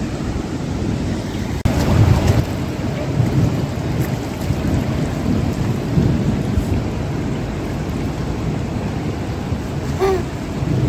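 Steady rushing of a river's current with wind buffeting the microphone in low rumbles, strongest a couple of seconds in.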